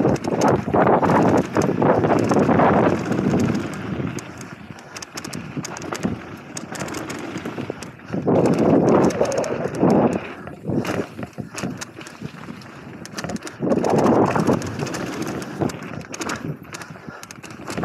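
Mountain bike riding down a loose dirt and gravel trail: knobby tyres rolling and scrabbling over the ground, with short knocks and rattles as the bike hits bumps. The noise swells into three louder stretches, near the start, about eight seconds in and about fourteen seconds in.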